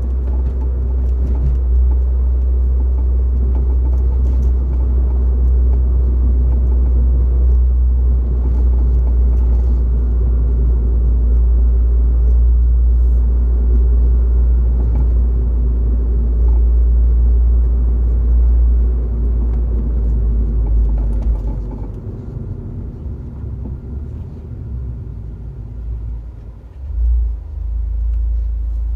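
Inside a MINI R56 on the move: a steady low rumble from the running car, with faint scattered clicks from the front suspension, the abnormal noise that sets in once the car has been driven a while. The rumble drops about three-quarters of the way through, with a brief swell near the end.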